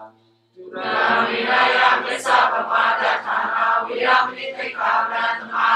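A congregation of lay Buddhists reciting a chant together in unison, many voices at once, starting about half a second in after the monk's lead.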